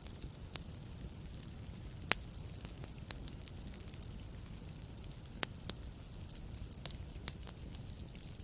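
Wood fire crackling: sharp irregular pops over a low steady hiss and rumble, with a few louder snaps about two, five and a half and seven seconds in.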